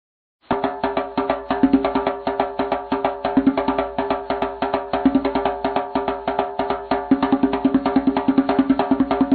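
Background music: after a brief silence, a track starts about half a second in with rapid percussion hits, several a second, over steady pitched notes.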